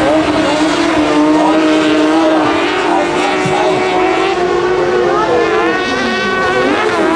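Engines of several 650 cc autocross special buggies racing, heard together with their notes overlapping. One engine holds a steady high pitch for most of the time, then several notes rise and fall as drivers lift off and accelerate, with one climbing near the end.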